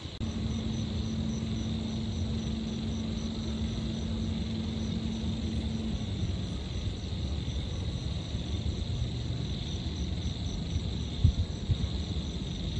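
Night-time city ambience: a steady low rumble of distant traffic, with insects trilling steadily and a regular high pulsing chirp over it. A low steady hum is heard through the first half and stops about six seconds in.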